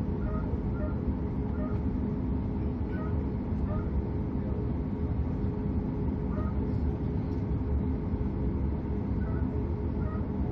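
Steady low rumble of an airliner cabin with a faint steady hum, and faint snatches of distant voices.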